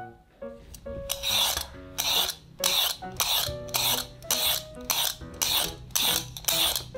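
Y-shaped vegetable peeler scraping the skin off a raw sweet potato in quick repeated strokes, about two a second, starting about a second in. Light background music plays underneath.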